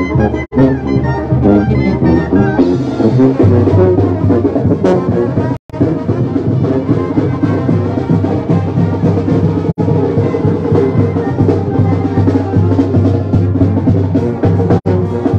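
A Mexican street brass band playing loudly: sousaphone bass line under trombones and trumpets, with drums. The whole sound drops out for an instant four times.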